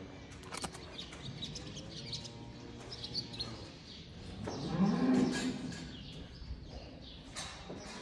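Cattle mooing: a quieter, low moo in the first half, then a louder, higher moo about four and a half seconds in that lasts a little over a second.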